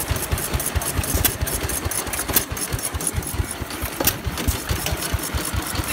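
Antique stationary gasoline engines running, a fast run of low thumps with sharp clicks over it.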